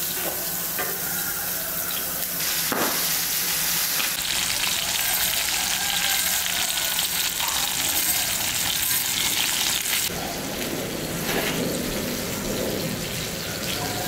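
Fish fillets sizzling and spitting in hot oil on a cast-iron griddle, a steady crackling hiss. About ten seconds in this gives way to liquid being poured from a clay jug into a glass.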